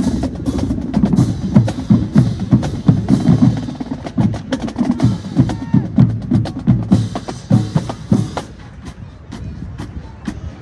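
Marching band drum section playing a cadence: bass drums and snares hitting in a quick driving rhythm with sharp stick clicks. It gets quieter near the end.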